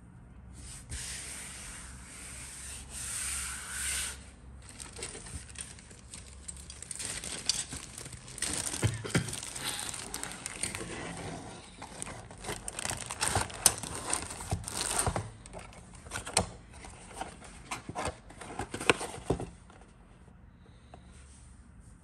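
Handling noise from scale model kit parts and packaging: a steady rustle for the first few seconds, then irregular rustling with many sharp clicks and taps that stop a couple of seconds before the end.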